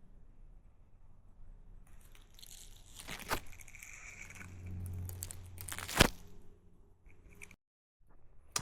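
Faint footsteps crunching and scuffing along a forest hiking trail, with a few sharp clicks, the loudest about six seconds in.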